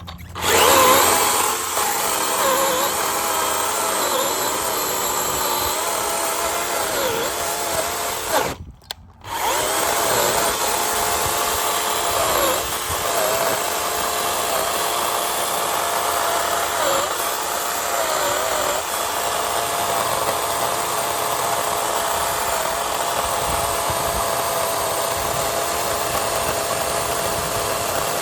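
DeWalt FlexVolt battery chainsaw running and cutting through a tough, year-old oak branch, its electric motor whine sagging and recovering in pitch as the chain bites. It stops briefly about nine seconds in, then starts again and keeps cutting.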